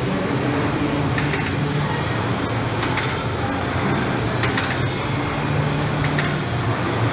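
Air rowing machine's fan flywheel whirring, surging with each stroke about every one and a half seconds, with a light click on each stroke.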